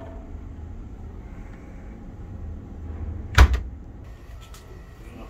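A mini fridge door shut with a single sharp knock about three seconds in, over a steady low rumble.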